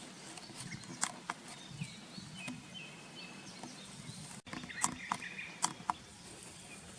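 Outdoor ambience with faint bird chirps, thin whistled notes, and several short sharp clicks, a few about a second in and a quick cluster around five seconds in.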